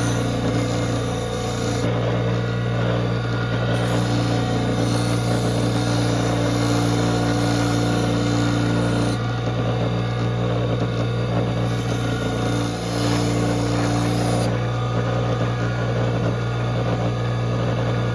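Wet sharpening wheel running with a steady low motor hum while a pocket-knife blade is ground on the wet stone, the grinding noise shifting several times as the blade is worked against the wheel.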